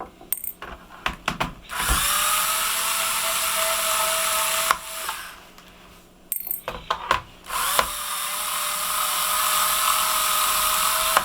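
Electric screwdriver backing out the screws of a laptop case: two runs of a steady motor whine, each about three seconds long, with clicks and taps of the bit and screws being handled before and between them.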